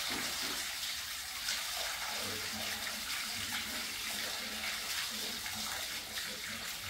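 Water poured from a vessel splashing steadily over a black stone idol and down onto the stone plinth.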